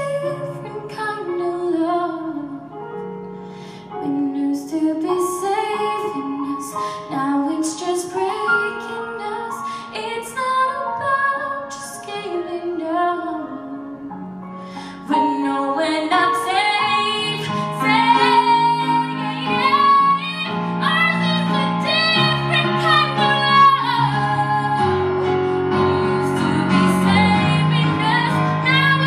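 A woman singing a slow melody into a microphone over keyboard chords. About fifteen seconds in, the singing and accompaniment grow louder and fuller.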